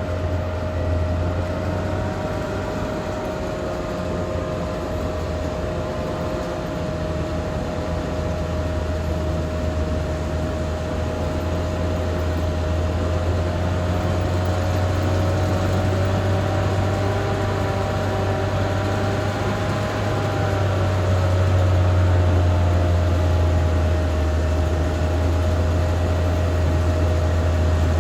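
Caterpillar D6R XL bulldozer running at work: a deep, steady diesel drone with a constant high whine over it, growing louder about three quarters of the way through.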